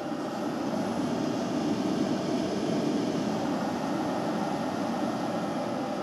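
Steady whirring drone of a running machine, with a faint high whine above it; it swells slightly a second or two in.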